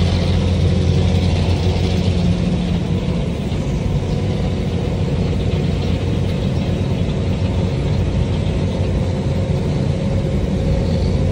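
Excavator's diesel engine running steadily under hydraulic load, heard from inside the cab, as the boom and bucket scoop rubble and swing it over a stone crusher.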